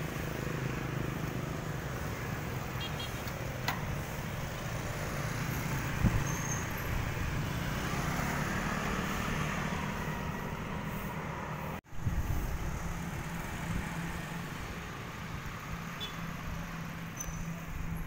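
Road traffic noise with motorbikes passing, heard from a moving rider. The sound breaks off for an instant about twelve seconds in.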